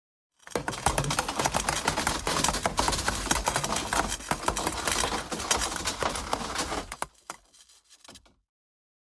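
Friction sound effect: a dense scraping and grinding, full of rapid crackles and clicks. It starts about half a second in and fades out near the end.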